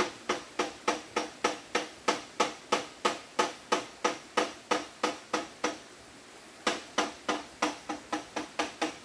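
Rhythmic knocking, about three blows a second, each a sharp hollow-sounding strike with a short ring, as of something being hammered or chopped. It stops for about a second in the middle and then carries on at the same pace.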